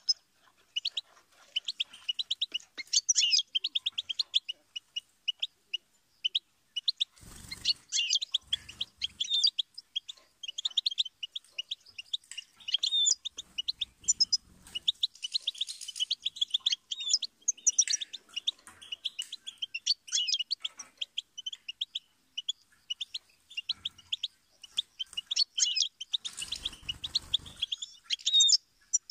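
European goldfinch singing: a continuous run of rapid, high twittering chirps and trills, with a few soft low bumps in between.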